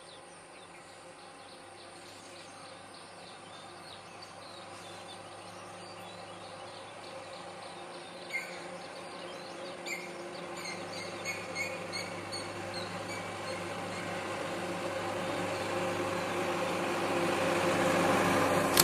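A heavy truck's engine approaching along the road, growing steadily louder until it is close near the end. A few short bird chirps come through in the middle, over a faint insect buzz.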